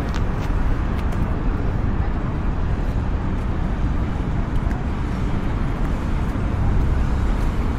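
Steady outdoor city background noise with a strong low rumble, of the kind made by traffic on nearby roads.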